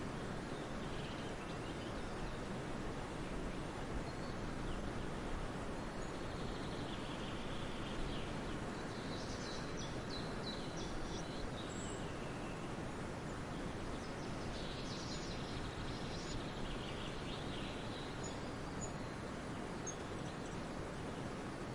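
Steady outdoor background noise, with small birds chirping and chattering in short high-pitched bursts now and then, most clearly around the middle and about two-thirds of the way in.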